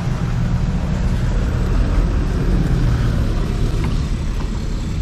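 Auto-rickshaw (tuk-tuk) engine running steadily close by.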